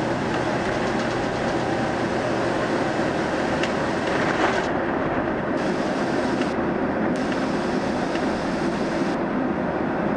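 Steady cabin noise of a passenger jet moving on the ground: an even rumble of engines and rolling, with one or two faint clicks near the middle.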